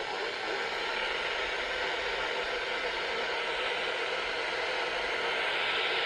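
Steady radio static hiss from a weather-radio receiver with no broadcast speech, and a faint steady tone underneath.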